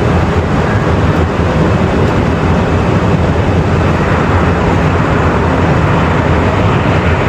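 Steady flight-deck noise of an Airbus A350-1000 on short final approach: a continuous rush of air with a low rumble underneath.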